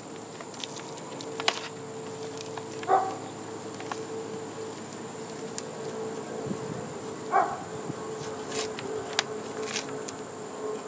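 Hands peeling and crinkling plastic wrap off the end of a cardboard shipping tube, with a few sharp crackles, over a steady background buzz.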